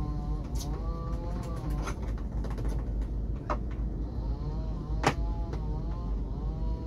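A motor whining, its pitch rising and falling over and over, over a low rumble, with a few sharp clicks; the loudest click comes about five seconds in.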